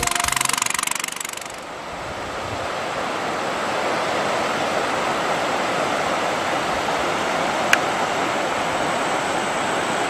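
Small outboard motor running at speed on a narrow river boat, cutting off after about a second and a half. It gives way to a steady rushing noise, with a single sharp click near the end.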